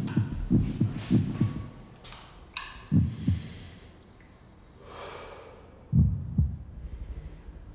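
Quick footsteps, about three a second, on a tiled stairway for the first second or so. After a short rustle come two pairs of dull low thumps about three seconds apart.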